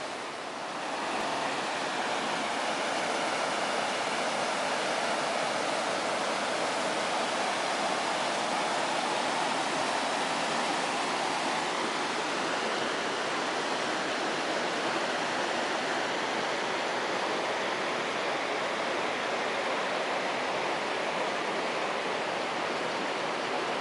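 Mountain river rushing over rocks: a steady, even rush of white water, a little louder about a second in.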